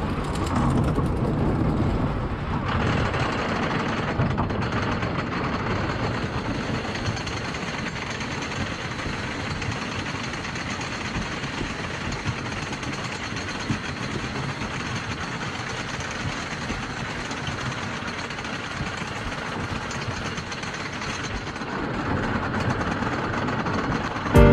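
Roller coaster train running along its track: a steady rumble and rattle that holds at a fairly even level and swells slightly near the end.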